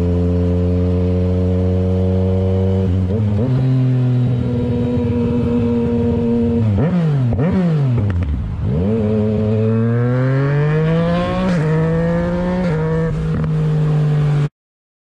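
Motorcycle engine running under way, steady at first, its note dropping a few seconds in. About halfway through the revs fall and rise sharply a couple of times, then climb steadily as the bike accelerates, stepping down twice at gear changes, before the sound cuts off abruptly near the end.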